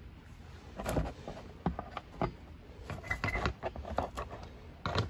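Hands working a stiff insulated wire into holes in a cardboard board: a scatter of short scrapes, taps and rustles, with a busier cluster about halfway through.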